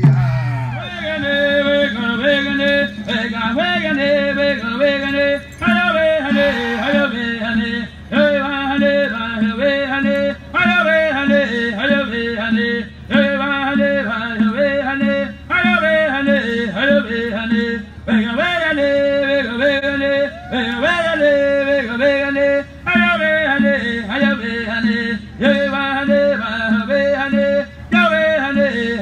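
Haudenosaunee smoke dance song: male voices singing in short, high, repeated phrases about two and a half seconds long, over a fast drumbeat.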